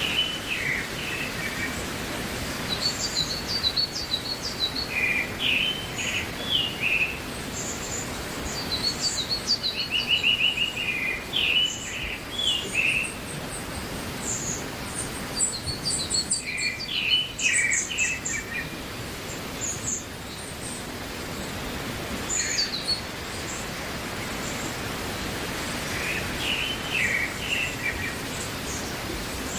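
Wild birds singing and chirping in short repeated phrases every few seconds, over a steady background hiss.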